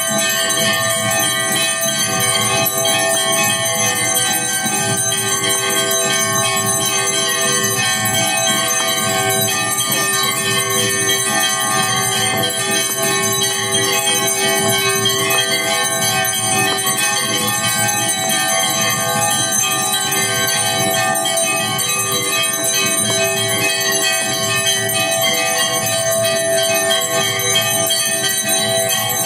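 Temple bells ringing continuously for aarti: several bells clanging rapidly together in a dense, unbroken peal that keeps a steady loudness throughout.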